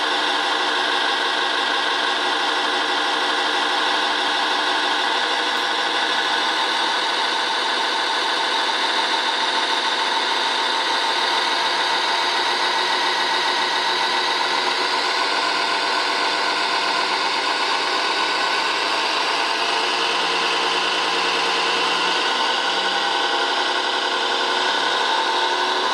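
Steady, unbroken whir of a radio-controlled model Liebherr mobile crane's small electric motors and gearing running while it holds a boulder on its hook. Several steady whining tones sit over a hiss, with no starts or stops.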